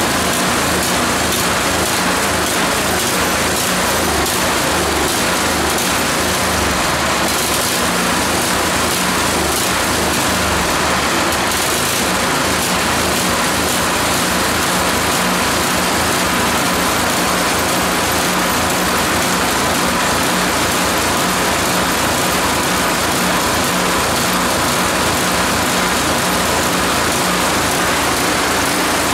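Small clone engine running steadily at a constant speed, its carburettor just cleaned out so it will run.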